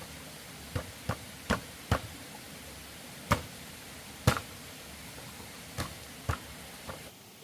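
Hand tool striking wood: about nine sharp, irregularly spaced chops or knocks, the two loudest a little over three and four seconds in, over a steady hiss that drops away near the end.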